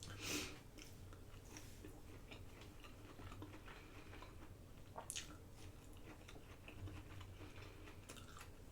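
Faint chewing of food, with small wet clicks, a short noisy swell just after the start and one sharper click about five seconds in.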